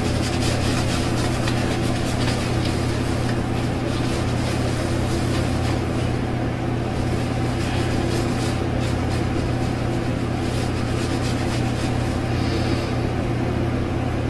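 A steady low mechanical hum, with the soft scratchy swishing of a synthetic shaving brush working lather over a shaved scalp.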